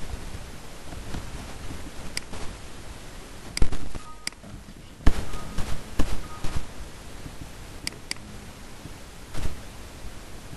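Scattered computer mouse clicks and key presses, a dozen or so short sharp clicks and knocks at irregular intervals, a few of them louder, over a steady background hiss.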